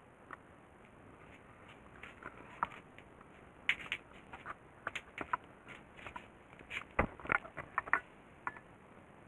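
An irregular run of small, sharp clicks and taps of hard parts being handled. They are sparse at first, crowd together from a few seconds in until near the end, and the loudest knock comes about seven seconds in.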